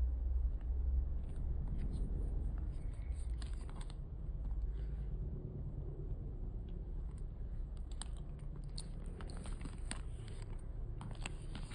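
Handling noise from a small faux-croc mini handbag: scattered light clicks and rustles from the bag and its metal strap hardware, coming thicker in the second half as the strap clasp is worked, over a low wind rumble on the microphone.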